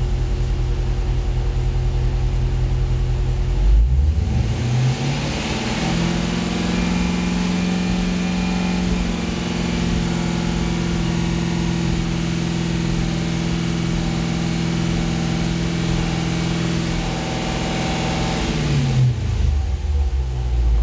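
A car engine running low, then revved up about four seconds in and held at a steady higher speed for some fifteen seconds, before dropping back toward idle near the end.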